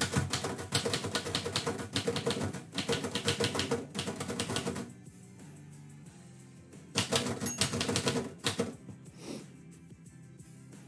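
Typewriter keys clacking in a fast run of typing for about five seconds, then a pause, then another short run of keystrokes about seven seconds in.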